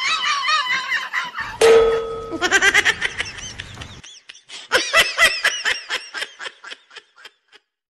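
Hearty laughter in rapid ha-ha pulses. It comes in two bursts, the second starting about five seconds in, and dies away shortly before the end.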